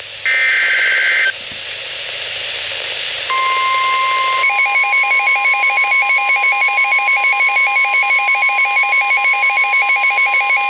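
Weather radio receiving a NOAA Weather Radio warning: a one-second burst of SAME digital header tones, about two seconds of static hiss, then the steady 1050 Hz warning alarm tone. About a second after the alarm tone starts, the receiver's own alert beep joins it, pulsing about twice a second.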